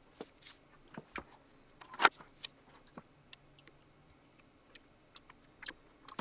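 Irregular clicks and taps of hands and small tools on a Digidesign 003 console being worked on, with one sharper knock about two seconds in.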